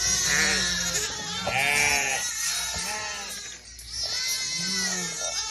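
Shetland sheep and their young lambs bleating, many calls overlapping, some deeper and some higher-pitched. There is a short lull about three and a half seconds in.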